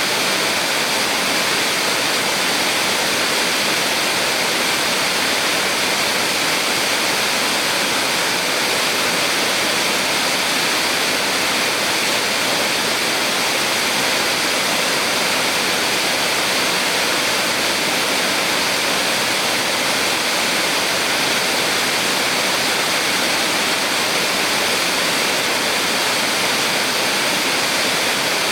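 A small waterfall on a mountain stream: water falling and rushing in a steady, unbroken hiss, bright and with little deep rumble.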